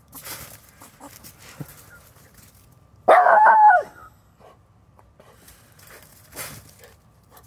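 Miniature schnauzer giving one loud, high-pitched bark about three seconds in, with fainter rustling and scraping before and after it.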